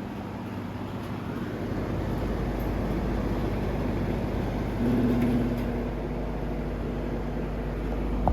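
Vintage ILG box fan running: a steady rush of moving air over a low motor hum. It grows louder over the first two seconds, and a brief stronger hum comes about five seconds in.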